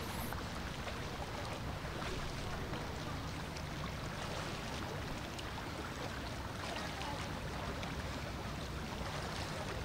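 Soft, steady lapping and rippling of swimming-pool water.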